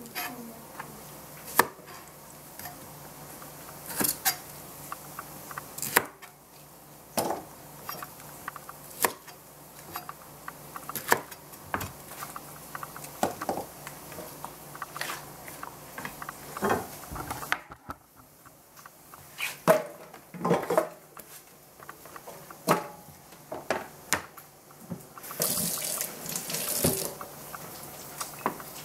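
Chef's knife cutting Brussels sprouts on a plastic cutting board: single knocks of the blade on the board every second or two. Near the end, about two seconds of hissing.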